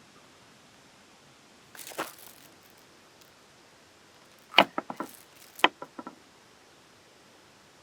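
Hard objects knocking: a short scuffing knock about two seconds in, then two sharp clacks a second apart, each followed by a few quick rattling ticks that die away.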